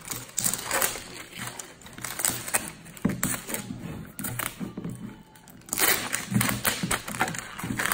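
Plastic shrink-wrap crinkling and crackling on and off as it is peeled from a large plastic toy egg, with a quieter stretch a little past the middle.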